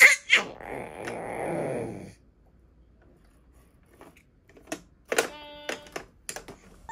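A baby growling in a rough, throaty rasp for about two seconds. Later come a few sharp plastic clicks and a short electronic tone from the buttons of a baby's activity-table toy.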